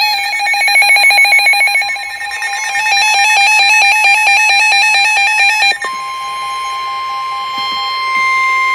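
Several NOAA weather radios sounding their electronic warning alarms: fast, buzzy stepped beeping that overlaps from more than one receiver. About six seconds in it gives way to the steady 1050 Hz Weather Radio alert tone that comes before a warning message.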